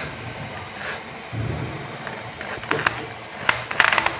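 Corded electric drill running in short bursts as a twist bit bores through an aluminium angle and section, with a few sharp metallic clicks near the end.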